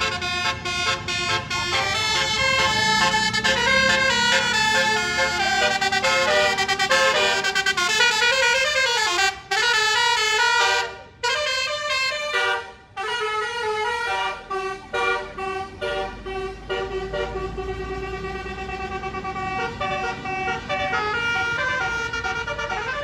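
Tour bus's basuri musical air horn (a telolet-style horn) playing a long, fast melody of short stepped notes, with a few brief breaks about halfway through.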